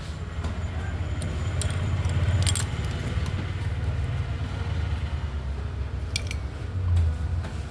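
A steady low hum with a few light metallic clicks and jingles over it, and a brief swell in the hum about seven seconds in.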